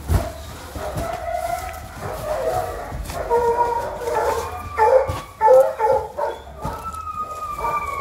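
Several dogs barking and howling at once, overlapping calls that rise and fall throughout, with a few dull knocks.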